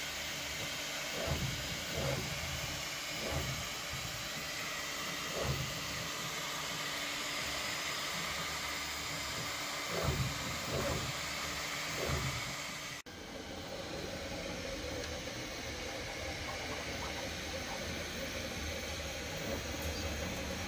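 Bambu Lab P1P 3D printer running a print: steady fan hiss, with short bursts of motor noise from the moving print head in the first half. A sudden cut about 13 seconds in, after which the fan hiss and a faint steady hum continue.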